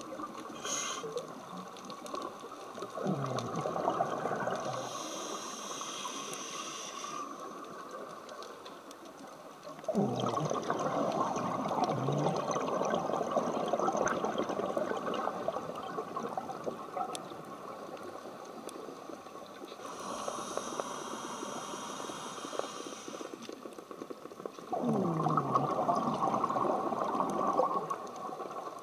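Scuba regulator breathing underwater: slow breaths, each exhale a loud rush of bubbles and each inhale a high hiss, with a faint steady tone underneath.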